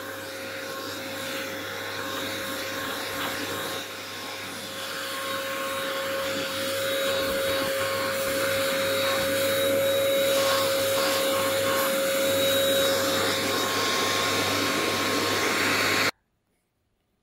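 Small electric appliance motor running with a rush of air and a steady whine, its flat nozzle worked over a robot vacuum's pleated HEPA filter to clear out the dust. It grows louder and cuts off suddenly about a second before the end.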